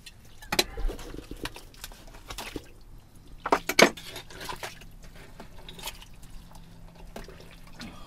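Old glass bottles clinking and knocking against each other and the dig in wet privy muck, with dripping water; the loudest knocks come about three and a half seconds in.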